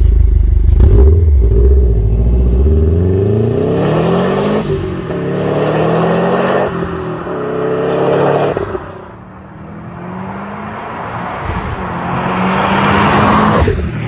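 Subaru STI's turbocharged flat-four engine and exhaust accelerating hard, revs climbing through two upshifts about four and a half and six and a half seconds in, then dropping away. Near the end the engine grows loud again before cutting off.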